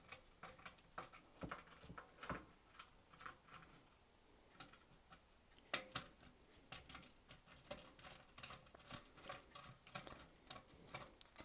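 Faint, irregular clicks and ticks of a small Torx screwdriver working out the T8 screws that hold down an Xbox 360's front panel board, with a few louder knocks of metal and plastic.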